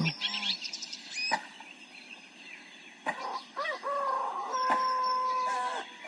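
A rooster crows once, about three seconds in: a rising start, then a long held note that ends just before the six-second mark. Hens cluck and small songbirds chirp around it, over the soft steady hiss of a brook.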